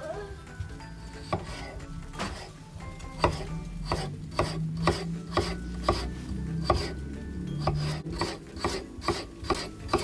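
Kitchen knife slicing a peeled raw potato on a cutting board, each cut ending in a knock of the blade on the board. The cuts start about two seconds in and come in a steady run of about two to three a second.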